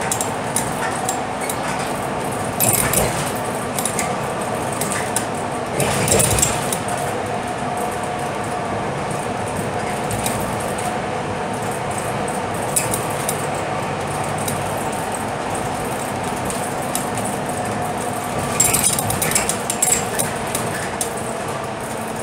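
Interior of a Scania K320UB city bus at cruising speed: a steady engine and road hum, broken a few times by short bursts of rattling and clinking from loose fittings as the bus rides over the road.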